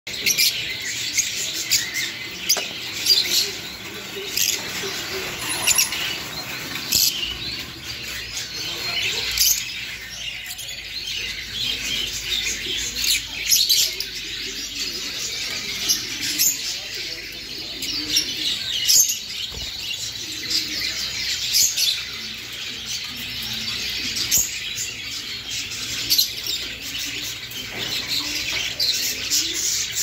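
A roomful of caged lovebirds chattering all at once: a constant overlapping stream of short, high-pitched chirps and squeaks.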